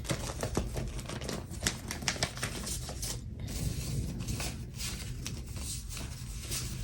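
Paper and sticker sheets being handled at a desk: irregular small clicks, taps and rustles, over a steady low rumble.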